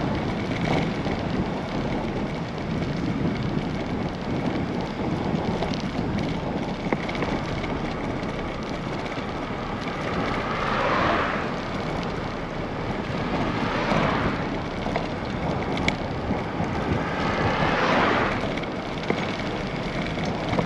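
Steady wind rush on the microphone of a moving bicycle, with three louder swells a few seconds apart in the second half.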